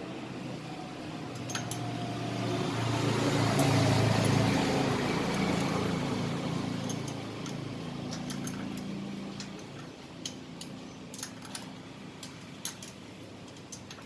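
A motor vehicle passes by, swelling to its loudest about four seconds in and then fading. After that, several light, sharp metallic clicks.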